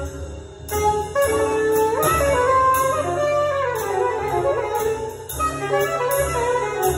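Small jazz combo playing: saxophones carrying the melody over upright bass, drum kit with repeating cymbal strokes, and piano. A saxophone phrase rises and then falls in the middle.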